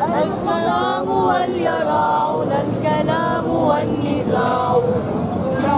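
Singing: a voice carrying a slow, melismatic melody, its notes bending and gliding.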